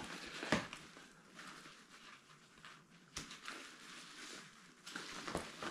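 Nylon rucksack being handled and its straps unbuckled: soft fabric rustling with a few sharp clicks of the plastic buckles, one about half a second in, one about three seconds in and a couple more near the end.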